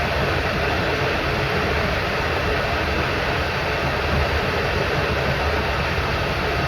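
SMD hot air rework gun blowing a steady rush of hot air onto a phone board connector, heating it until its solder melts so the connector can be lifted off.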